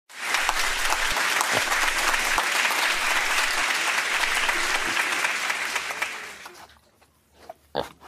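Applause: many hands clapping, steady for about six seconds, then fading out.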